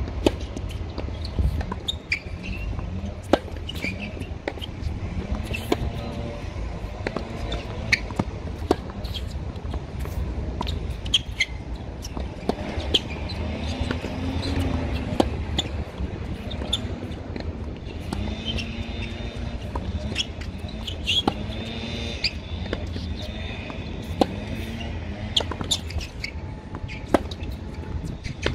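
Tennis balls being struck and bounced on an outdoor hard court, heard as sharp pops scattered throughout, over a steady low rumble.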